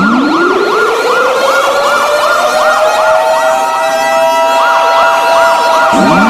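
Emergency warning sirens: a slow wail rises in pitch over about three seconds and holds, then drops sharply near the end and starts climbing again, overlaid with a fast yelping tone cycling several times a second.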